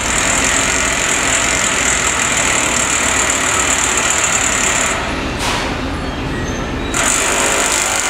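Construction machinery engine running steadily and loud, with a high, even hiss over it that drops out for about two seconds past the middle and then returns.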